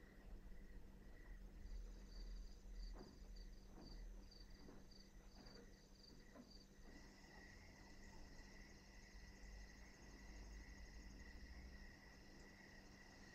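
Faint night ambience of crickets chirping: a pulsing chirp for a few seconds, then a steadier high trill from about halfway through.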